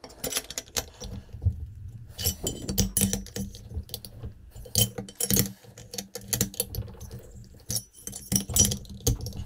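Hex key turning the cylinder bolts of a Poulan 3400 chainsaw by hand: irregular small metallic clicks and clinks of the key against the bolt heads and cylinder.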